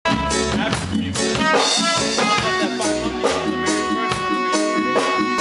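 A live reggae band playing an instrumental passage, with bass, drums and guitar, starting abruptly.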